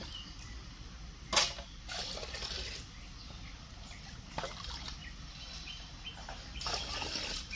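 Water scooped with a small plastic container from a plastic bucket and sloshed over a plate, with a sharp knock about a second and a half in and a rush of splashing near the end.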